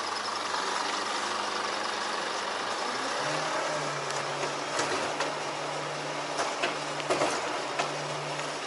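A 38 m truck-mounted ladder lift runs its engine and hydraulic drive with a steady low hum while its cargo platform travels up the extended ladder. The hum steps up in pitch about three seconds in, and a few sharp ticks come later.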